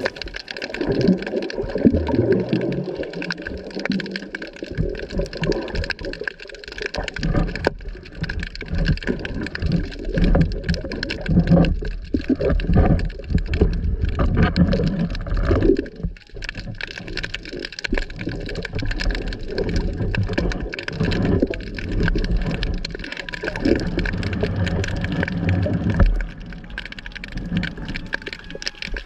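Muffled underwater sound heard through a camera housing: a steady wash of moving water with low rumbling and gurgling, broken by many small clicks and knocks as the diver and speargun move.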